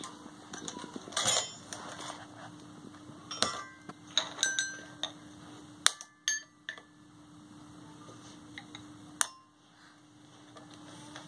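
Toddler's toy xylophone, its coloured bars struck unevenly with a wooden mallet: a string of irregular clinks, several ringing briefly, mixed with knocks and clatter as the mallets and toy are handled.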